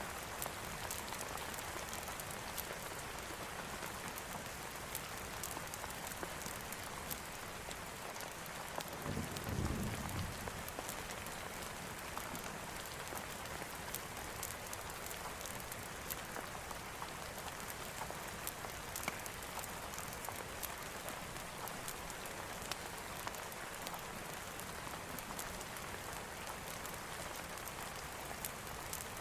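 Steady heavy rain falling, an even hiss with scattered sharp drip ticks. A short low rumble comes about nine seconds in.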